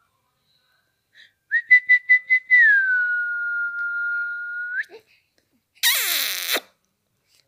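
A person whistling to a baby: about five quick short notes, then one long note that slides down and is held steady for about two seconds before flicking up at the end. A second later comes a brief, loud, noisy sound.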